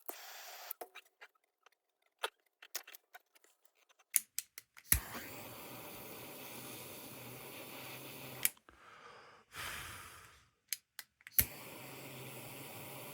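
A handheld gas torch clicks alight about five seconds in and its flame hisses steadily for a few seconds, then is shut off with a click and lit again with another click near the end, warming a solder joint before flux is applied. Small handling clicks come before it.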